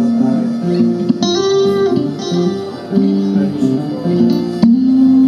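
Music with plucked guitar notes, played back over a hi-fi loudspeaker system, with a sharp tap a little before the end.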